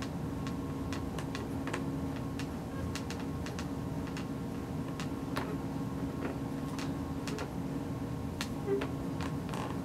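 Quiet indoor room tone: a steady low hum with many faint, sharp ticks and clicks scattered irregularly through it, about two or three a second.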